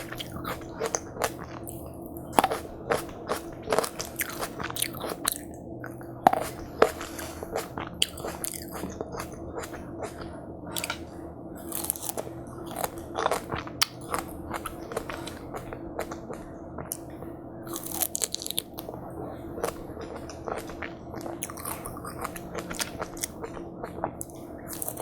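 Close-miked biting and chewing of juicy watermelon: irregular wet crunches and crackles, several a second, without pause.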